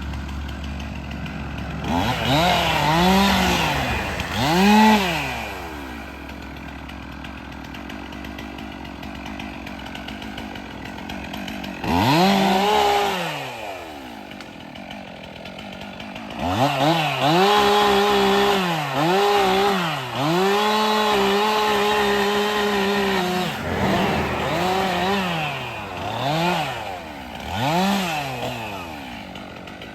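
Stihl MS 362 two-stroke chainsaw cutting brush and small trees, revved up again and again and dropping back to idle between cuts. There are two short revs early, a quieter idle stretch, a long run at full throttle with brief dips about two-thirds through, then several quick revs near the end.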